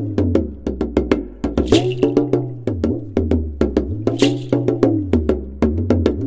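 Instrumental background music with a steady beat: quick knocking percussion over a moving bass line, with a bright cymbal-like wash about every two and a half seconds.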